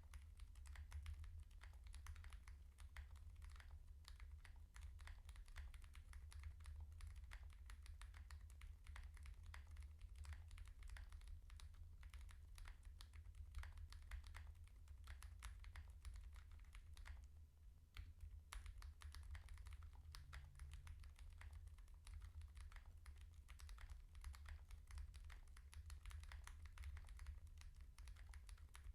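Continuous fast typing on a TKL mechanical keyboard with stock (unlubricated) Gazzew x Smith + Rune U4Tx tactile switches, in an FR4 plate with Poron foam: a dense run of key clacks with a brief pause about two thirds of the way through.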